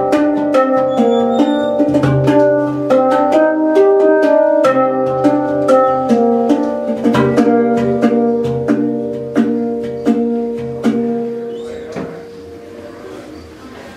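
Hang drum played with the hands: a steady run of struck, ringing steel notes, about three a second, forming a melody. The playing stops about twelve seconds in and the last notes ring away.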